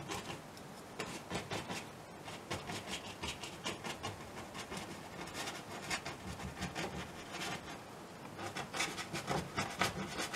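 Paintbrush scrubbing and dabbing acrylic paint onto canvas: a quick run of short scratchy strokes, thickening and getting louder near the end.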